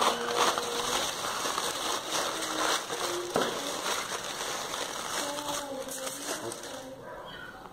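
Aluminium foil crinkling and rustling as it is handled, dying down near the end.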